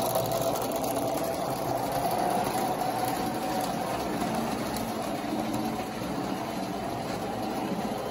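Lionel 1955 Texas Special O-gauge model train running past: the F3 diesel units' electric motors hum steadily and the wheels click along the three-rail track as the passenger cars roll by.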